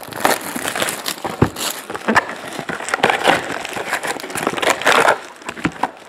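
Foil-wrapped Panini Prizm football card packs crinkling and rustling as they are lifted out of their cardboard hobby box and stacked, with a few sharp knocks among the rustling.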